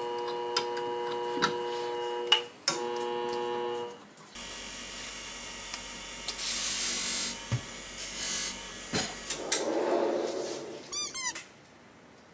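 Flat hone shear-sharpening machine running with a steady hum that cuts off about four seconds in, followed by a few seconds of tissue paper rustling as it is handled, and a short squeaky chirping sound near the end.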